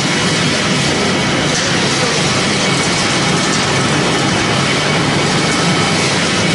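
Wood-processing machinery, a hammer-mill crusher and pellet line, running steadily: a loud, even mechanical noise with faint steady high whining tones.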